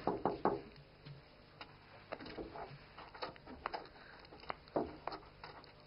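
Faint, irregular light clicks and taps in a quiet room, one at a time at uneven gaps.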